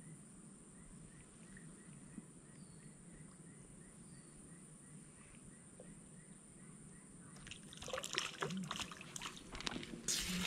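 Quiet pond-side ambience with a faint regular chirping about three times a second. About seven and a half seconds in, a burst of rustling and clatter starts as the fishing pole is lifted and the angler shifts on the leaf litter.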